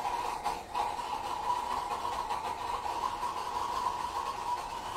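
Gummy bears burning violently in two test tubes of molten potassium chlorate, a steady rushing hiss with a brief dip about half a second in.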